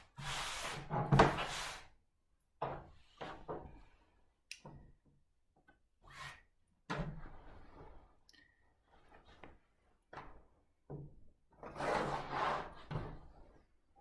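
Cut pieces of jacket fabric being gathered, shaken out and laid flat on a table: a string of rustling and brushing sounds of cloth, loudest at the start and again near the end, with a few short soft knocks on the tabletop.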